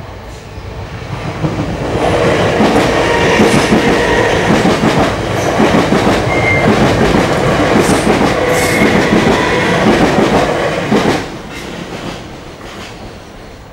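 South Western Railway electric multiple-unit train passing over a level crossing: a loud rumble of wheels on rail with a repeated clatter as the wheelsets cross a rail joint. It builds over the first two seconds and drops away suddenly about eleven seconds in as the last carriage clears the crossing.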